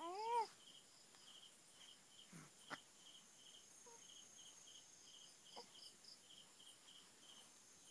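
Faint crickets chirping steadily, a regular run of short high chirps. Right at the start a baby gives a short coo that rises and falls in pitch, and there are a few faint clicks, one just under 3 seconds in.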